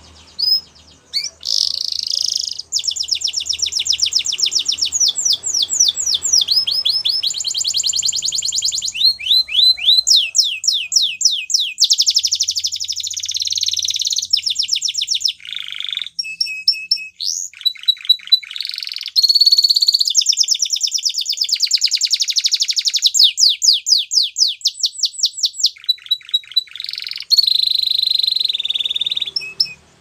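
Spanish Timbrado canary singing a long, nearly continuous song of fast trills and rolls, switching to a new phrase every second or two, with a few short pauses.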